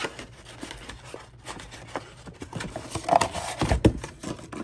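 Small kraft cardboard box being opened by hand: flaps folded back and rubbing, with scattered light clicks and scrapes, and a dull knock a little before four seconds in as the jar candle inside is pulled out.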